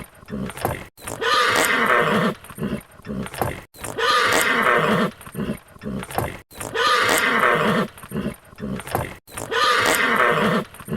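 A horse whinnying, the same recording looped about every three seconds with an abrupt cut at each restart. Each repeat is a loud, wavering whinny of about a second, followed by a string of low, sputtering pulses.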